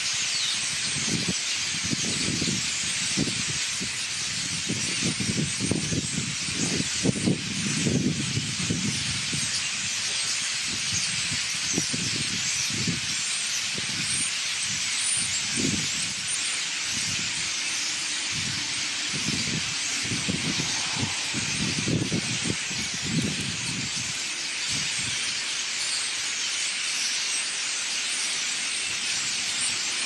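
A very large flock of small songbirds massed in treetops, calling all at once in a dense, unbroken chatter. Wind gusts buffet the microphone on and off, heaviest in the first third and again about two-thirds of the way through.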